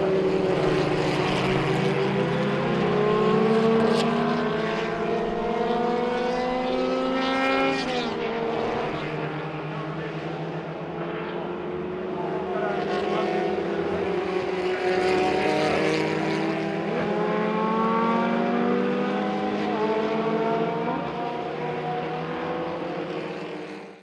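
1960s cigar-shaped formula racing cars at full throttle, engine notes climbing in pitch over and over as they accelerate, with a sudden drop in pitch about eight seconds in.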